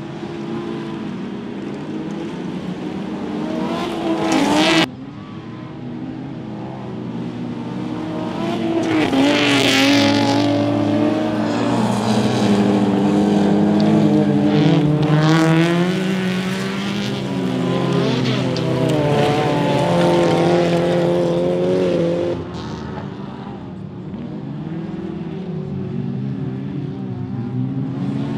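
Folkrace cars racing on a dirt track, their engines revving, with the pitch repeatedly climbing and dropping as they accelerate and change gear. Several engines overlap through the middle. The sound cuts abruptly about five seconds in and again near twenty-two seconds.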